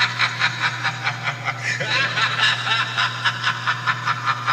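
A recorded cackling laugh from a Halloween show soundtrack: quick, even "ha-ha-ha" pulses at about four a second, over a steady low hum.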